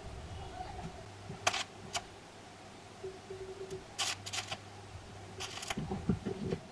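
Stick (arc) welder tack-welding steel square tubing: a few short bursts of arc noise, the longest about half a second, about four seconds in, over a faint steady low hum.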